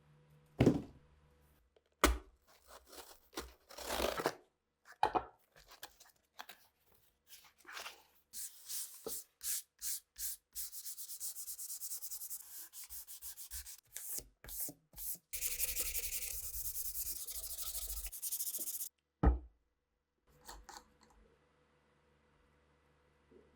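Rubbing and sanding on Arisaka rifle parts. A few sharp knocks come in the first seconds, then a run of quick rubbing strokes, then a steady stretch of about three and a half seconds that cuts off suddenly, followed by one sharp knock.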